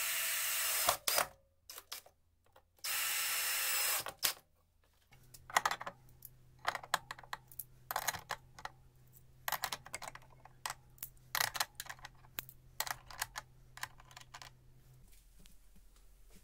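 Cordless drill driving a screw in two short runs of about a second each. Then a string of light metallic clicks and clinks as chrome ratcheting combination wrenches are hung one by one on a holder made from old circular saw blades.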